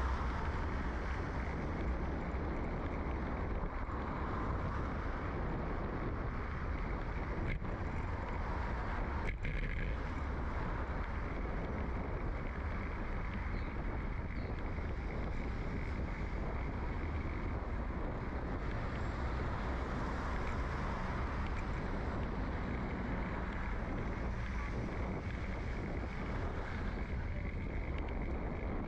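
Riding noise picked up by a bicycle-mounted microphone in a furry windshield: a steady low rumble of wind and road running through the frame, with the hiss of tyres rolling on asphalt. Two sharp clicks come about two seconds apart, roughly a quarter to a third of the way in.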